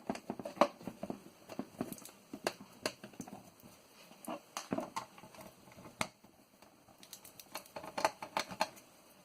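A screwdriver working screws out of a small metal plate on a floppy disk drive: irregular light clicks and ticks, more of them shortly before the end.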